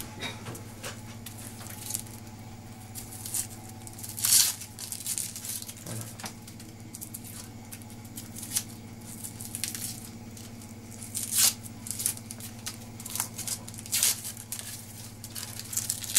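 Dry, papery onion skin crackling and tearing as it is peeled off with a kitchen knife, in irregular scrapes and rustles, the loudest about four seconds in and again near eleven and fourteen seconds.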